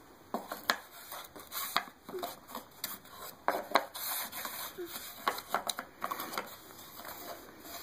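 Irregular light clicks, taps and scrapes of a round puzzle piece being knocked and rubbed against the slots of a wooden shape-puzzle board as a child tries to fit it in.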